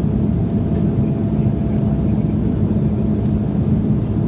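Steady cabin noise of an Embraer 175 jet in flight: a low drone from its two underwing GE CF34 turbofan engines and the rushing airflow, with a thin steady hum above it, heard from a window seat near the wing.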